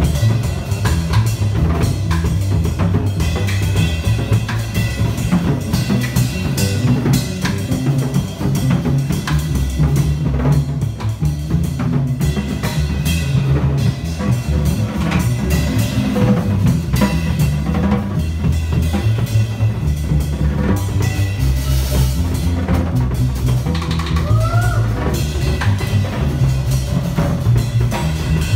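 Live drum kit and bass of a band's rhythm section playing a driving groove, busy kick and snare hits over a moving bass line.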